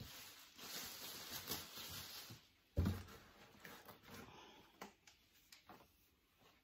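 Fabric rustling as clothing is pulled out of a cardboard box, with one thump about three seconds in and a few light clicks after it.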